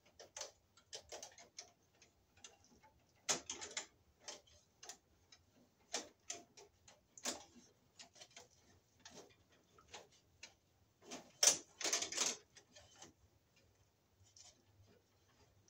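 Irregular clicks, scrapes and rustles of a stiff white electrical wire being pushed aside, routed and bent inside a metal breaker panel, with a louder cluster of crackling about three-quarters of the way through.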